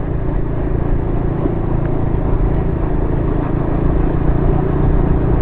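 KTM motorcycle engine running steadily while being ridden, with road noise. The rider says the bike is running badly and suspects a burnt clutch plate.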